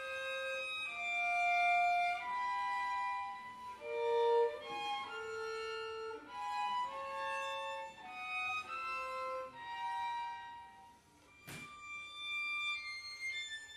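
Violin and cello duo playing contemporary classical music: a run of held bowed notes, mostly in the violin's middle and high range. After a short lull there is a single sharp click-like attack about eleven and a half seconds in.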